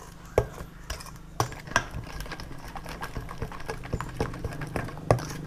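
Metal ladle stirring a thick marinade in a stainless steel bowl, clinking irregularly against the bowl several times a second.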